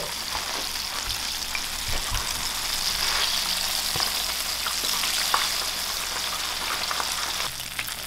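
Flour-battered catfish fillets frying in hot oil in a frying pan, a steady sizzle with scattered crackles. The sizzle drops a little near the end.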